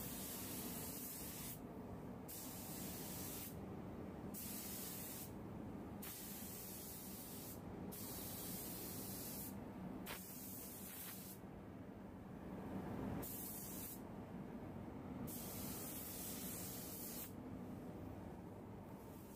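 Compressed-air spray gun, a copy of a DeVilbiss GTI Pro, spraying automotive base coat at 2.5 bar: a steady air hiss that stops and restarts about eight times as the trigger is released between passes.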